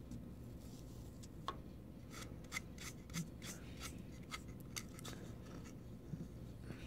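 Faint handling noise as a glued 3D-printed model is dipped in baking soda on aluminium foil: a scatter of small clicks and rustles, about a dozen, between one and a half and five seconds in, over a low steady hum.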